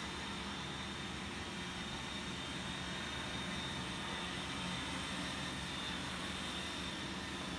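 Two electric pedestal fans running, giving a steady whir of moving air over a low, even hum.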